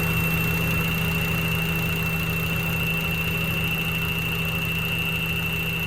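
1992 Honda Civic hatchback's four-cylinder engine idling warm, with a steady high-pitched whine over the engine note. The whine comes on once the engine is warmed up and persists after a new alternator and a new, tightened belt; its cause is unknown to the owner.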